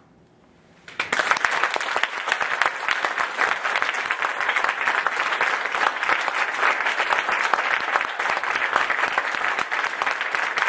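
Audience applauding. It starts suddenly about a second in, out of near silence, and continues as dense, steady clapping.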